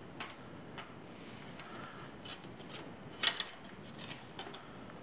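Hands handling paracord over a wooden surface: faint rubbing and small ticks, with one sharper click a little over three seconds in.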